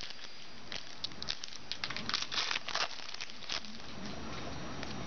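Trading cards and their pack wrapper being handled: a run of crinkling and crackling that stops about three and a half seconds in.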